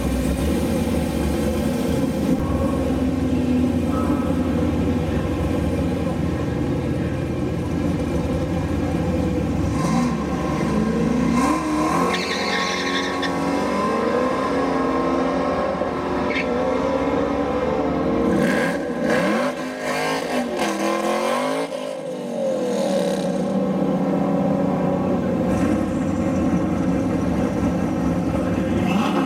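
V8 engines of a Ford Mustang Boss 302 and a Chevrolet Camaro ZL1 idling, with repeated rising and falling revs through the middle stretch.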